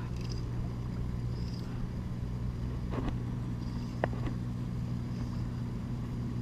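A motor humming steadily at a low, even pitch, with a couple of sharp clicks about three and four seconds in.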